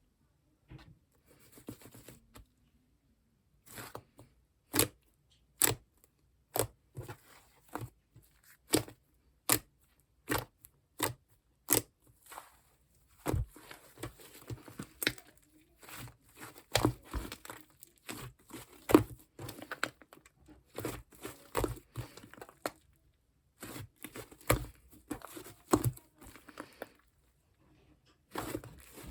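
Fluffy shaving-foam slime being pressed, poked and pulled by hand. A row of sharp pops comes about one a second at first, then gives way to denser crackling, tearing and popping as the slime is worked.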